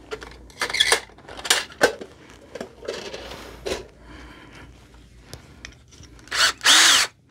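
Metal drill bits clinking and rattling in a metal drill-bit case while a bit is picked out, then near the end a cordless drill briefly spinning up and winding down.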